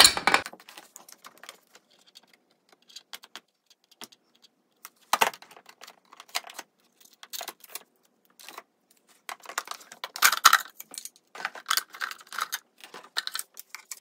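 Plastic wrapping and tape being pulled off small hard plastic coffee-maker parts during unpacking: irregular crinkling and rustling with small clicks and light knocks, busiest about five seconds in and again near the end.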